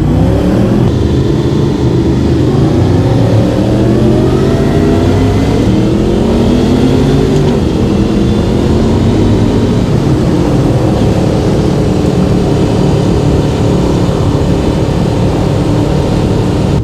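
Motorcycle engine under way, its revs rising and falling several times over the first half as it accelerates and shifts, then running steadier, with road and wind noise.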